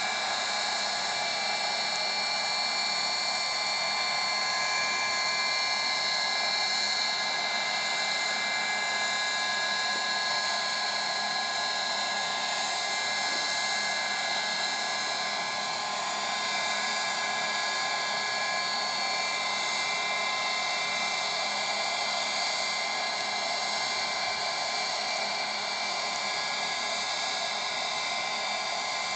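Model gas turbine engine of a radio-controlled helicopter running steadily in flight: an unbroken high whine made of several held tones over a rushing hiss.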